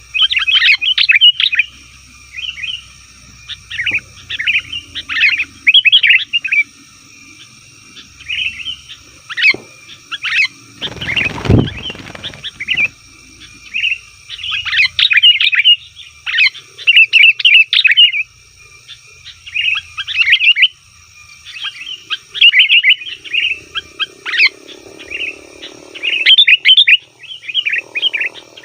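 Sooty-headed bulbuls calling noisily, in repeated short bursts of quick chirping notes with brief pauses between them. A loud low rumble cuts in briefly about eleven seconds in.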